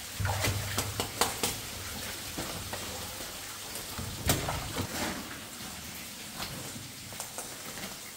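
Scrapes and knocks of boots and hands against rock and old wooden mine timbers as a man climbs down a narrow, steep tunnel. There is a quick run of knocks in the first second and a half and a louder one about four seconds in, over a steady hiss.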